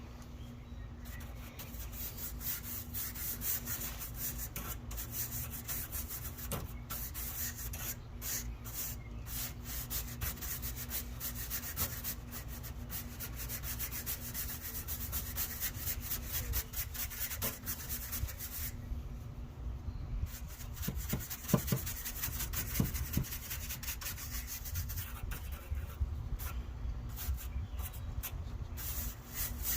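A brush scrubbing caked dirt off the thin aluminium fins of a dirty AC condenser coil, in continuous scratchy strokes. A few sharper knocks stand out about two-thirds of the way through.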